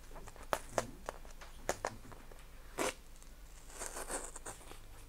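A parcel being opened by hand: a few sharp snaps and clicks, then a short rustle of crinkling packaging about four seconds in.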